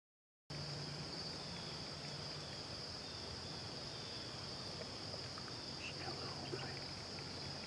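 Steady high-pitched chorus of insects, cricket-like, in a grassy clearing, starting abruptly about half a second in after a moment of silence, with a few faint chirps in the second half.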